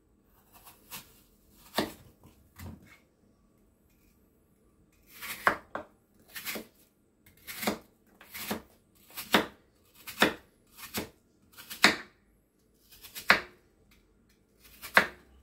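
Kitchen knife slicing a peeled apple into thin slices on a wooden cutting board, each cut ending in a sharp tap of the blade on the board. A few faint knocks come first, then the cuts follow at about one a second from about five seconds in.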